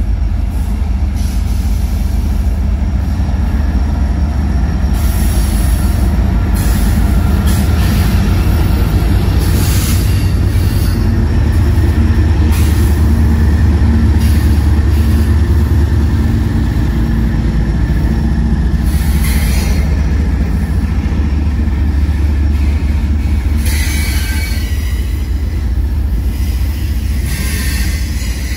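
A train rolling past close by: a steady, loud low rumble of wheels on rail, with short bursts of higher wheel squeal every few seconds.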